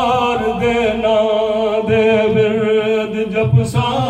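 A man's voice chanting a devotional recitation into a microphone, unaccompanied, in long held notes that waver slightly in pitch.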